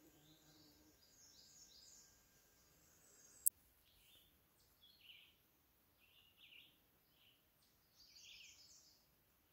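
Faint birdsong: short, high chirping phrases repeated four or five times. In the first second a bee's low buzz fades out, and a single sharp click comes about three and a half seconds in.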